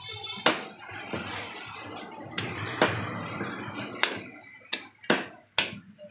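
Butcher's cleaver chopping chicken pieces on a wooden log chopping block: about seven sharp chops at uneven intervals, coming quicker in the last couple of seconds.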